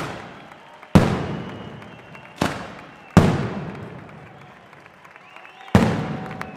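Heavy firecrackers of a mascletà going off: five loud single bangs at uneven intervals, each echoing and dying away between the buildings. Faint crowd voices between the bangs.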